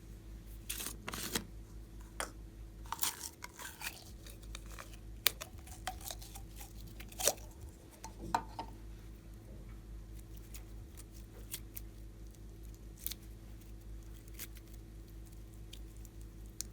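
Slime being squished and pulled by hand, giving irregular crackles and sharp pops, busiest in the first half. A low steady electrical hum runs underneath.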